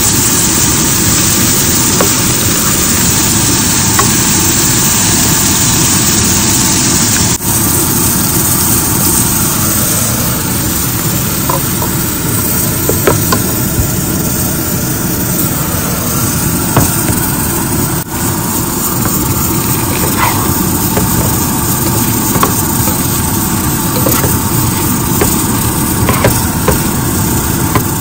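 Chopped onions and tomatoes sizzling in oil in a frying pan, stirred with a plastic spatula that scrapes and taps the pan now and then, over a steady low rushing noise. The high hiss thins out abruptly about seven seconds in.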